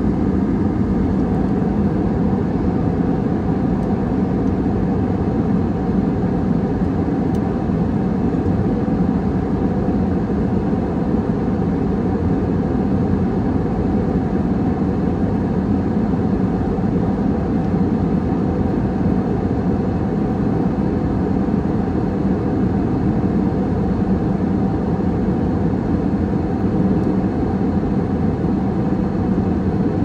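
Passenger jet cabin noise in cruise flight: a steady, unchanging low drone of engines and airflow, strongest in the low range, with a faint even hum above it.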